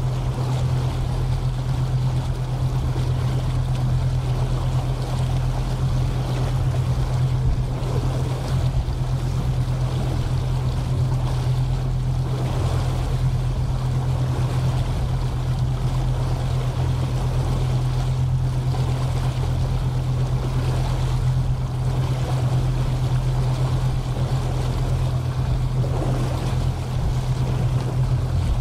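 Pusher tug's diesel engines running steadily as it pushes a barge, a constant low drone, with wind and water noise over it.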